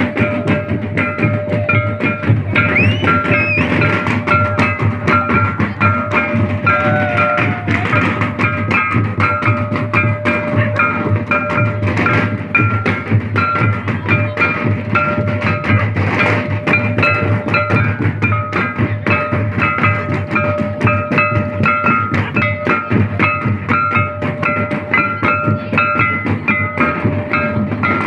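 Santali dance music: fast drumming with a repeating run of short high notes over a steady held tone.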